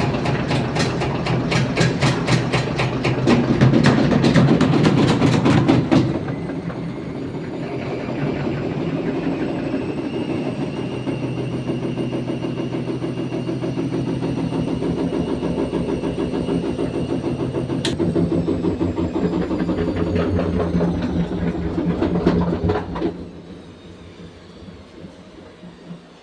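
Thomson washing machine running with an abnormal noise: a fast, even clattering for the first six seconds, then a steadier rhythmic running with a faint whine, which drops to a much lower level about 23 seconds in.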